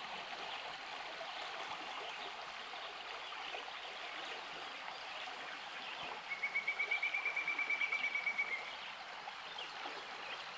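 Swift, shallow river water rushing and rippling past the bank, a steady rush. About six seconds in, a high, even pulsed trill lasts about two seconds, louder than the water.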